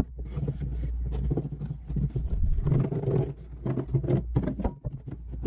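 Dirt bike's hollow plastic fuel tank being handled and turned over, giving irregular knocks, taps and rubbing scrapes over a steady low rumble.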